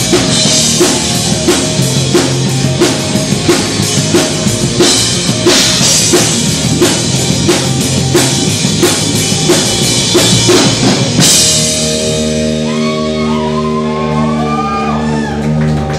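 Rock band playing live: a fast, steady drum-kit beat with electric guitar. About eleven seconds in the drums stop, and held guitar chords ring on with some wavering, sliding high notes.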